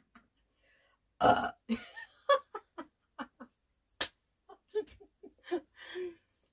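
A woman burps loudly after eating, about a second in, followed by short bursts of laughter and a single sharp click near four seconds.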